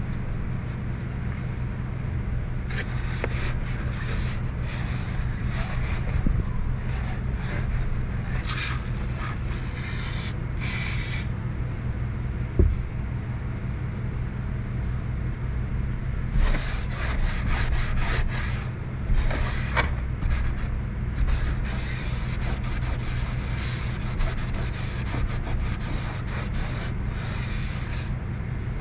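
A cloth rubbing and scrubbing the sheet-metal housing of a rooftop RV air conditioner in quick repeated strokes, in two spells with a pause between, over a steady low hum. A single sharp knock comes about midway.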